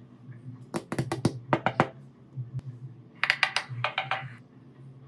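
Two quick runs of light taps or clicks, about seven in the first run just under a second in and about six more around three seconds in, over a low steady hum.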